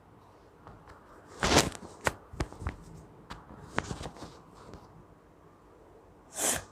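Dry grass stalk being handled and poked into a nostril to provoke a sneeze: a run of short clicks and rustles, loudest about a second and a half in, then a brief hiss near the end, with no sneeze coming.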